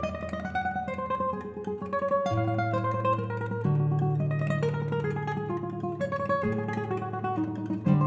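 Solo classical guitar playing: single plucked notes in a slow line over held low bass notes that change a few times.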